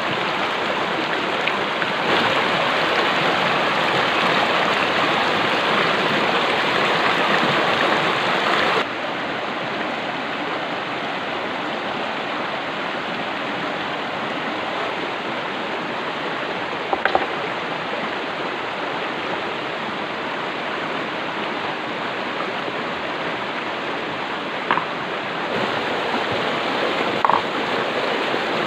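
Stream water flowing steadily, an even rushing sound, with a few short clicks or knocks over it.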